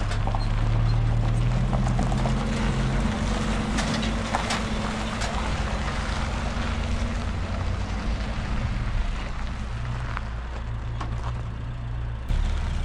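Motor vehicle engine running steadily, with a few faint knocks or rattles; it gets suddenly louder near the end.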